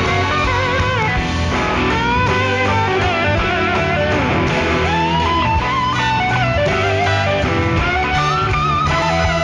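Blues-rock band playing an instrumental break, led by an electric guitar whose notes glide and waver, over a steady bass line.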